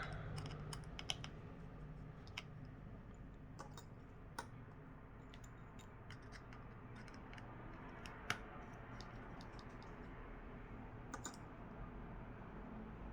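Faint, scattered light clicks and taps of small repair tools on the tiny screws and metal shield inside an iPhone 11 as the shield's screws are taken out, about half a dozen irregular ticks.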